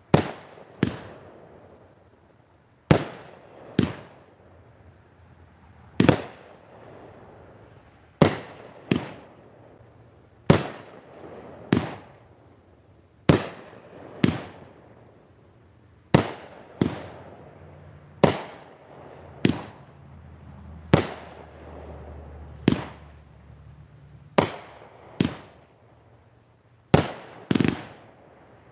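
A 500-gram consumer firework cake firing a run of sharp bangs, roughly one to two seconds apart and sometimes in quick pairs, each trailing off briefly as its shells break in the air.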